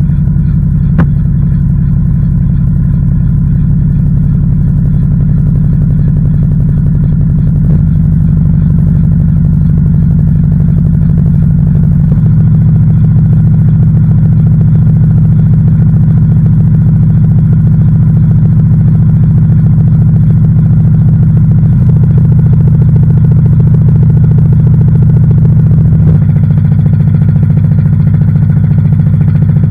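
LG washing machine running mid-cycle, heard from inside the drum: a loud steady motor hum whose pitch steps to a new level several times, with a brief knock at some of the changes.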